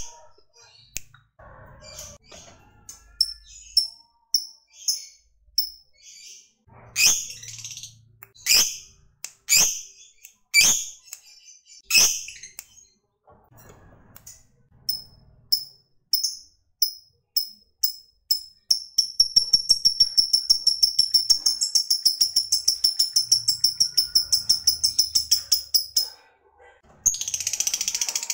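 Lovebird calling: single sharp, high chirps about a second apart ('ngetik'), then, about two-thirds of the way in, a long fast chattering trill of rapidly repeated notes ('ngekek') lasting about seven seconds before it breaks off.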